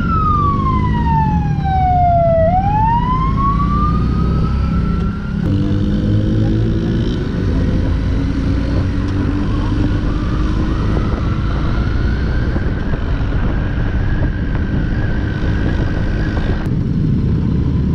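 Police siren wailing: one slow sweep down in pitch over about two and a half seconds and back up, then holding high and fainter until it cuts off near the end. Underneath, the motorcycle's engine and wind noise run steadily, the engine rising in pitch as the bike picks up speed about five seconds in.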